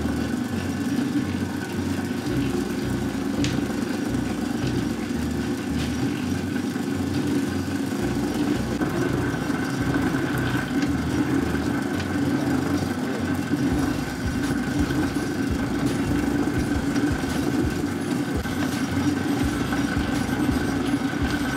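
Planetary dough mixer running steadily on slow speed, its dough hook turning flour and water into a sourdough dough in a steel bowl.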